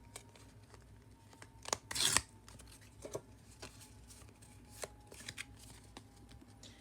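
Pokémon trading cards being handled and slid past one another in the hand: scattered light clicks and taps, with a brief rustling swish about two seconds in.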